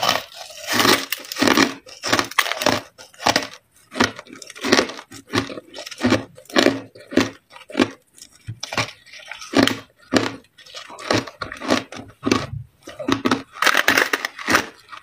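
Biting and chewing crushed white ice packed into a ball: a run of crisp, irregular crunches, several each second.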